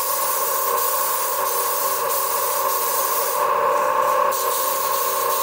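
Steady hissing rush, like gas or air streaming out, over a steady hum. The high hiss thins briefly a little after three seconds in.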